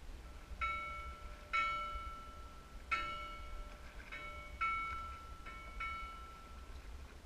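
Navigation buoy's bell struck irregularly by its clappers as the buoy rocks on the swell: about seven clangs on one clear pitch, each ringing on and fading.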